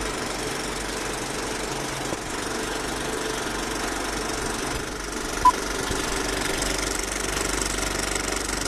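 Film projector clatter as a sound effect: a steady mechanical rattle with hiss. One short beep about five and a half seconds in marks the countdown leader's 2-pop.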